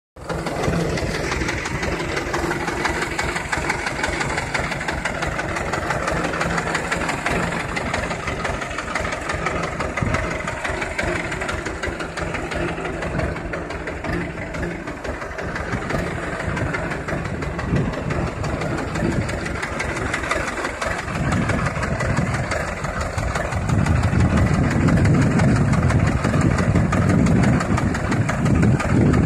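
An HMT 2511 tractor's two-cylinder diesel engine idling steadily with a rapid, even knock. It gets louder and deeper in the last few seconds.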